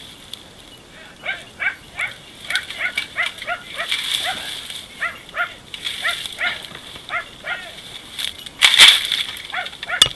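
Hunting dachshunds barking in short, rapid yaps, about three a second: baying a wounded wild boar brought to bay. Near the end comes a louder burst of noise.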